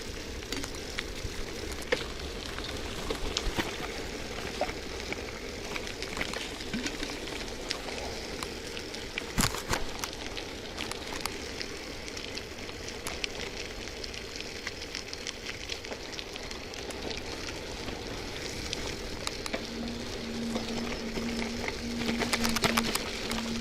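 An old bicycle ridden over a wet, muddy dirt track: a crackling hiss from the tyres on wet ground, with scattered rattles and clicks from the frame and chain and a single louder knock about nine seconds in.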